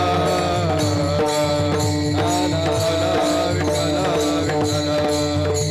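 Kirtan accompaniment music: a harmonium holding steady notes over a hand drum, with small hand cymbals striking a steady beat.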